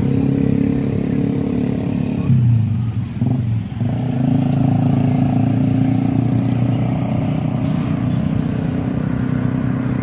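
Hino tour bus's diesel engine running. Its note shifts briefly about two to four seconds in, then settles back to a steady run.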